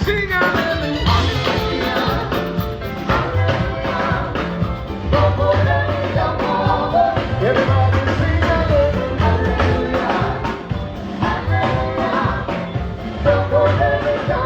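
A live band playing a gospel song with singing over it: regular drum kit hits, a steady bass line and a sung melody.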